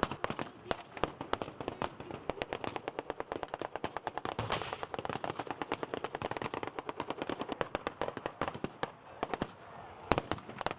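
Blank-firing rifles and machine guns of a battle reenactment: rapid overlapping shots, several a second, without a pause. A louder bang comes about ten seconds in.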